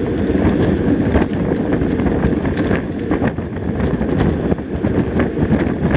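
Heavy wind buffeting the microphone of a camera on a moving mountain bike, a loud steady rumble with gusty flutter.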